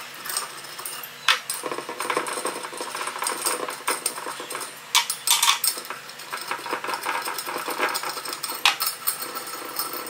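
Allen key turning in the bolt sockets of an aluminium truss corner cube: a run of light metal clicks, ticks and rattles, with a few sharper clinks about a second in, around five seconds and near the end.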